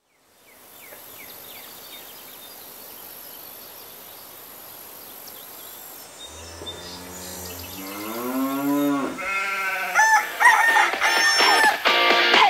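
Open-air country background with faint bird chirps, then one long farm-animal call that rises in pitch over about three seconds. Electric guitar music starts near the end.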